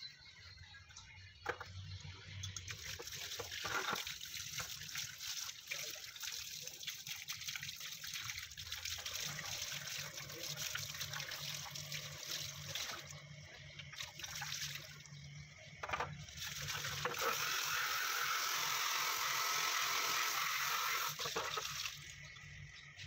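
Water splashing and trickling over a plastic tail light lens as it is scrubbed and rinsed by hand, with a few sharp knocks of the lens being handled. A steady rush of tap water is loudest for several seconds near the end, then stops.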